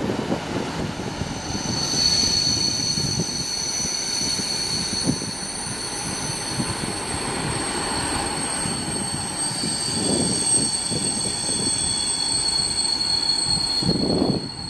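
Freight train of covered wagons rolling past, wheels rumbling on the rails, with a steady high-pitched wheel squeal setting in about a second in and holding on.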